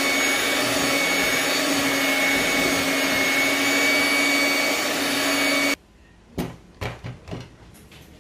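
Electric kitchen mixer motor running at a steady speed with a constant hum and whine, cut off abruptly about six seconds in. Several light knocks and clatters follow.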